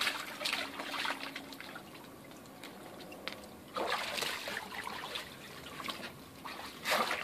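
Dog splashing in the water of an inflatable paddling pool: short splashes at the start, about four seconds in and again at the end, with quieter trickling and dripping between.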